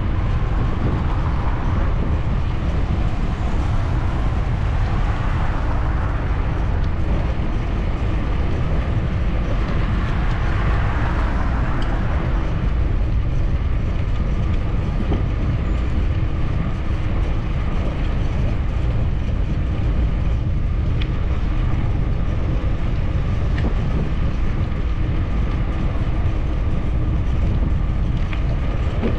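Steady wind rush on the microphone with the rolling noise of a bicycle riding along a paved path, strongest in the lows, with a brief swell of noise about ten seconds in.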